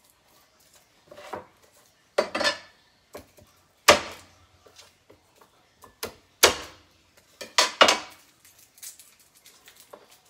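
Chinese cleaver striking a wooden cutting board: about half a dozen sharp chops at uneven intervals, with a few fainter taps between them.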